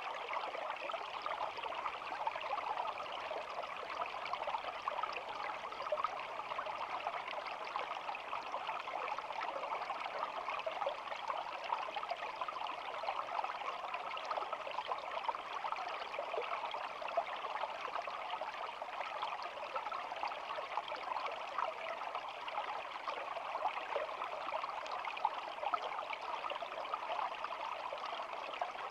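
Small stream running and babbling steadily, an even rush of flowing water with fine trickling detail.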